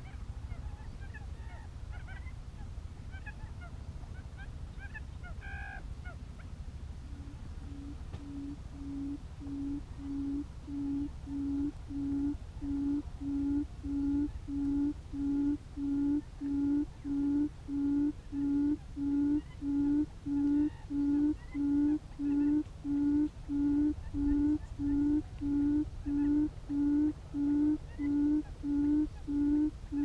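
Quail call used as a trap lure, played through a speaker: a steady series of low hoots, about one and a third a second. It starts about seven seconds in and grows louder over the next dozen seconds before holding level. Faint small-bird chirps come before it.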